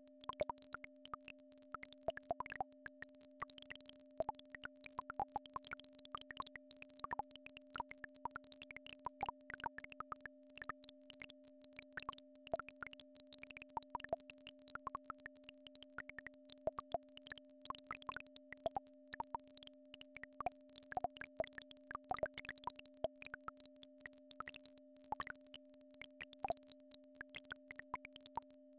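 Two faint, steady synthesized tones, one low and one about an octave above it, held without change, with a scatter of irregular soft pops and clicks over them.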